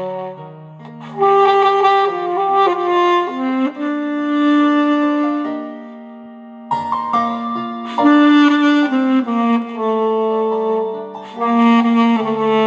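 Alto saxophone playing a slow song melody in long held notes over a steady accompaniment, pausing briefly between phrases about half a second in and about six seconds in.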